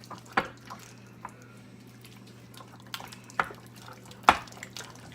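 Homemade borax slime being kneaded and pulled off the hands and the inside of a bowl, giving five or so sharp, wet pops and clicks, the loudest near the end.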